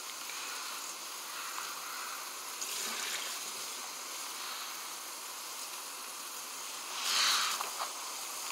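Steady hiss of open air on a phone microphone, broken by a faint breathy puff about three seconds in and a louder one near the end as a person blows out smoke.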